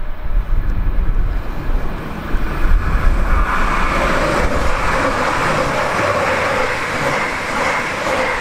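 A eurobahn Stadler FLIRT electric multiple unit running past the platform. The rushing of the train swells about three and a half seconds in, with a steady whine under it, after low wind rumble on the microphone at first.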